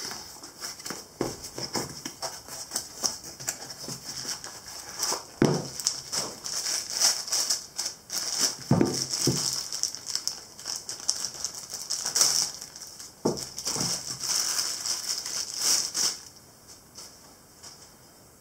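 Clear plastic bag crinkling and rustling as a lathe quick-change tool holder is unwrapped, with a few knocks mixed in. The rustling stops about two seconds before the end.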